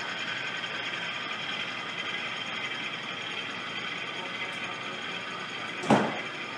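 HO scale model diesel locomotives running along the track with a boxcar in tow, making a steady mechanical drone. A single brief knock comes near the end.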